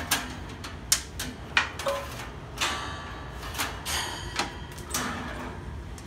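Metal clicks, snaps and rattles as the rear wire grill of a 1960s Torcan box fan is worked free of its retaining tabs and pulled off the sheet-metal housing. There is a longer scrape about two and a half seconds in and a brief metallic ringing around four seconds.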